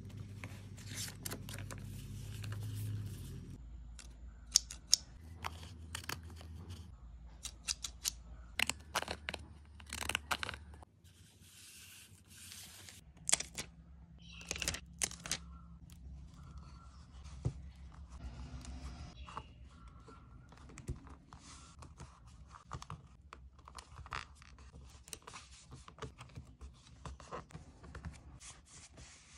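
Close-up paper handling: a journal page turned over, then stickers and cut-outs peeled from their backing with short ripping sounds and pressed onto the dotted paper by hand. A string of crisp crackles, snaps and rustles, the sharpest about four to five seconds in.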